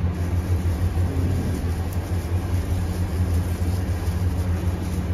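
Steady low rumble with a hum, unchanging throughout.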